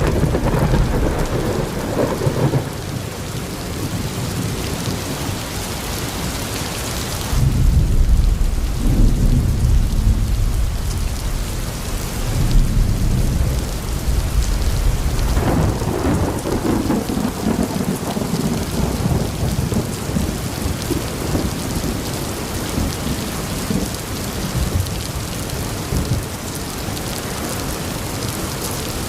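Heavy rain falling steadily, with deep low rumbling swells about seven seconds in and again around sixteen seconds.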